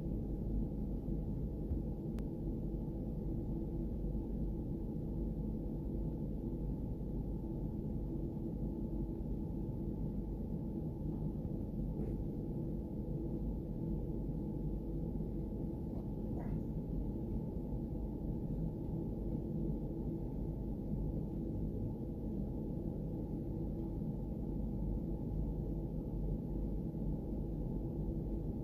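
A steady low hum made up of several steady tones over a rumble, with a couple of faint ticks and a brief higher tone about two-thirds of the way through.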